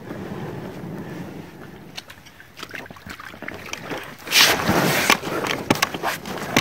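Water sloshing and splashing against an inflatable boat under way on a river, with sharper splashes and slaps about four seconds in.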